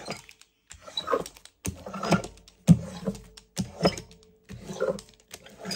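Rubber brayer rolled back and forth over paper glued onto a journal page, pressing it flat, in rhythmic strokes about once a second.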